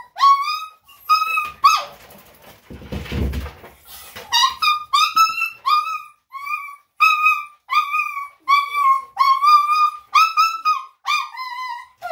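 Bichon/Shih Tzu mix dog giving loud, repeated high-pitched yips, about two a second, each short call rising at its start. The calling pauses for about two seconds near the start, where a brief low rumble is heard.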